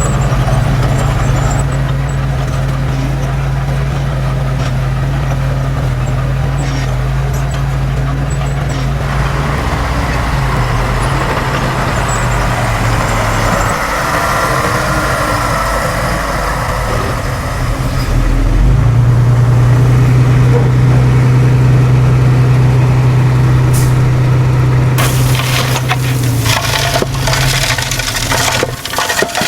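A heavy diesel engine running steadily, getting louder a little past halfway. Near the end, irregular crunching and clanking join it.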